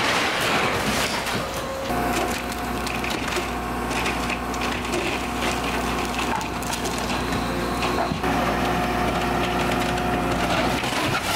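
Wood framing, drywall and siding cracking and splintering as a hydraulic excavator's bucket crushes and tears apart a house. The Cat 314E excavator's diesel engine runs steadily underneath from about two seconds in.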